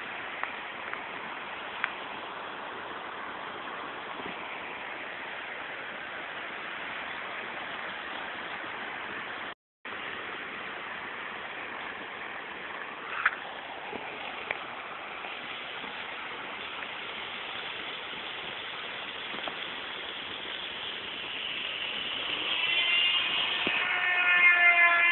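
Heavy rain falling, a steady even hiss, which cuts out for a moment a little before the middle. Near the end a steady pitched tone with several overtones rises in level and becomes the loudest sound.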